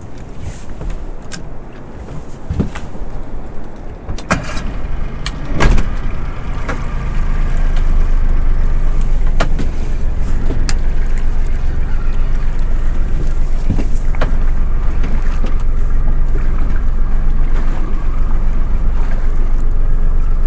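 A few sharp knocks and clicks, then about seven seconds in a small boat's outboard motor picks up and runs steadily in reverse, backing the boat up to pull a snagged lure free.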